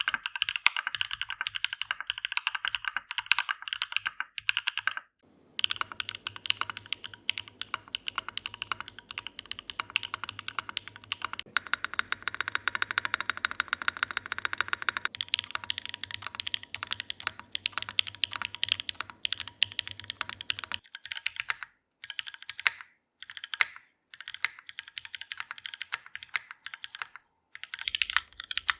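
Fast typing on a mechanical keyboard with Thermal v2 switches: a steady stream of keystroke clicks. The sound changes abruptly several times, about five, fifteen, twenty-one and twenty-eight seconds in, as separate typing takes are cut together.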